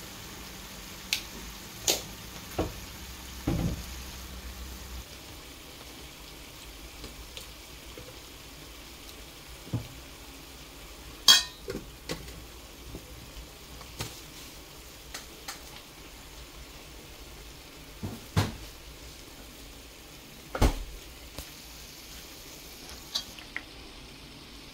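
Scattered clinks and knocks of a metal spoon and jars against a stainless steel mixing bowl, the loudest a little past the middle, over a steady faint sizzle of green chili peppers frying in a pan.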